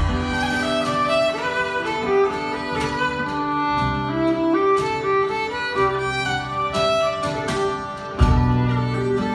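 Live folk instrumental played by a small band: a fiddle carries the melody over acoustic guitar accompaniment, and low notes swell up strongly near the end.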